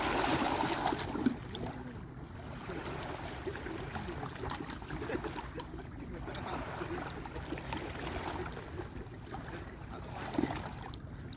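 Paddle strokes in lake water: a paddle dipping and pulling, with splashing and trickling drips, swelling every couple of seconds.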